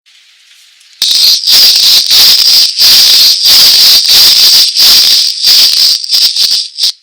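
Sound-effect playback from a children's button sound book's small speaker. About a second in, a loud, crackly rattling noise starts, pulsing two or three times a second, then cuts off near the end.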